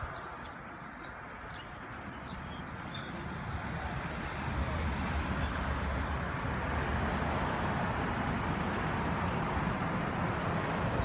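Street traffic: cars passing close by, the noise swelling about four seconds in and staying loud with a low rumble. A few short bird chirps come in the first few seconds.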